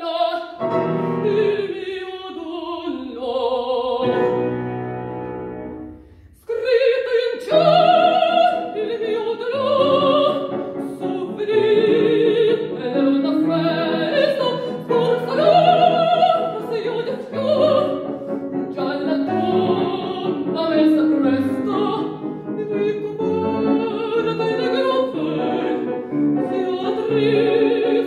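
A woman singing in classical operatic style with wide vibrato, accompanied by a grand piano. The music drops away briefly about six seconds in, then the voice comes back.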